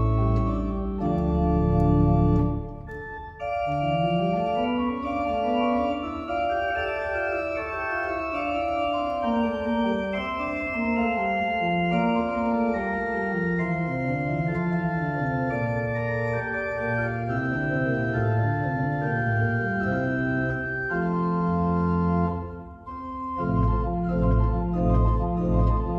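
Church pipe organ playing slow music: held chords, then a melody line that steps up and down over sustained notes. It breaks off briefly twice, and full chords with deep bass return near the end.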